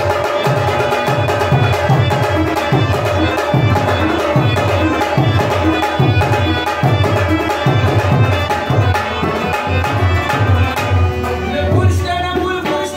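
Live folk music: a harmonium's held chords and a plucked rabab over a steady hand-drum beat of about two strokes a second. A man's singing voice comes in near the end.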